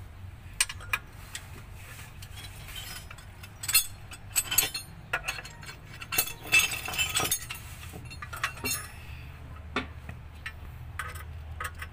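Irregular metallic clicks and clinks of a hand wrench working the bolts that fasten a clutch pressure plate to the flywheel, coming in quick clusters a few seconds in and again past the middle.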